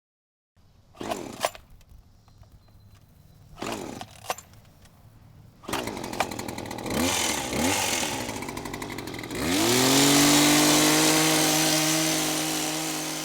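Electric motor of a Greenworks 82-volt battery power tool, triggered in two short bursts that whine up in pitch. From about six seconds it runs with a wavering speed. Near ten seconds it spins up to full speed and runs loud and steady, then slowly eases off.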